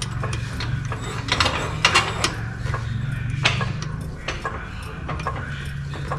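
Metal hand tools and sockets clinking and clanking as they are handled, with several sharp knocks, over a steady low hum.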